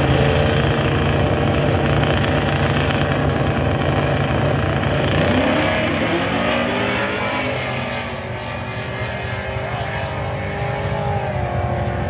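Two drag cars' engines held at steady revs on the starting line; about five seconds in they launch, engine pitch climbing as they accelerate away down the track.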